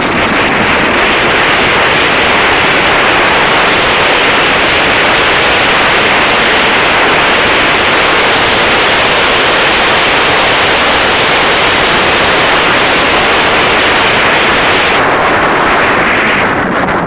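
Heavy wind buffeting the microphone: a loud, steady roar of noise that drowns out everything else, easing slightly in its hiss near the end.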